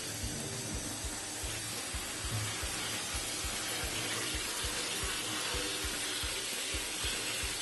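A shower head spraying a steady stream of water, rinsing dust off the plastic cover of a wall-mounted air conditioner.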